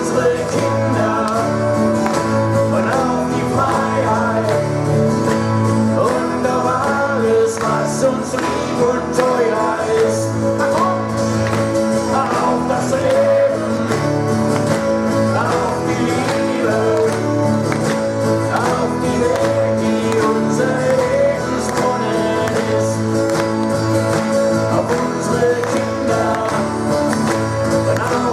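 A live band playing a rock song, with guitars over a steady bass line.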